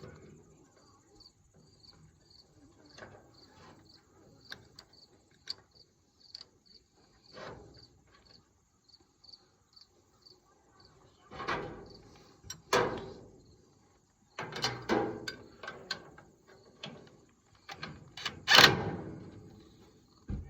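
Crickets chirping steadily, about two chirps a second, while metal clanks and rattles come from work on the baler's roller drive chain in the second half, the loudest clank near the end.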